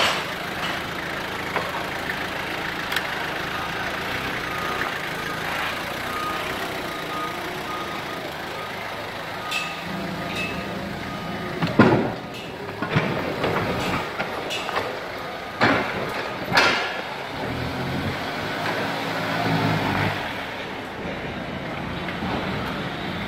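Hyster forklift engine running under load, with a steady low rumble that rises at times as it drives. Several sharp clunks and knocks ring out, the loudest about halfway through and two more a few seconds later.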